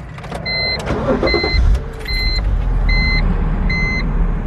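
BMW Z4 3.0si's straight-six engine cranking briefly and catching about a second and a half in, then idling steadily. A repeating electronic warning beep sounds over it about once every 0.8 seconds.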